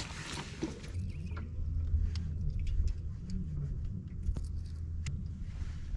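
Fishing gear being handled on a bass boat deck: scattered clicks and knocks over a low steady hum that sets in about a second in.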